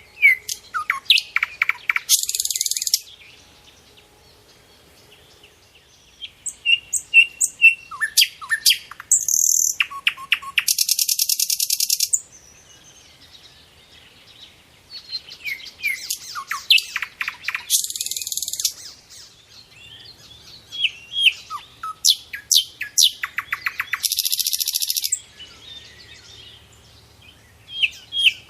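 Small pet birds singing in repeated bouts of quick high chirps and downward-sweeping notes, with harsh buzzy notes about a second long. The bouts come every few seconds with short pauses between them.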